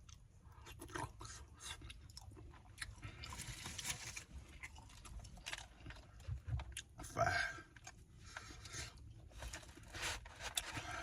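A person chewing a mouthful of food close to the microphone: wet smacking and small crackling clicks at an irregular pace, with a brief voice-like sound about seven seconds in.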